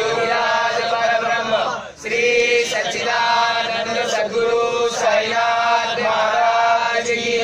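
A group of men chanting a Hindu devotional prayer together in unison, with long held notes and a short break for breath about two seconds in.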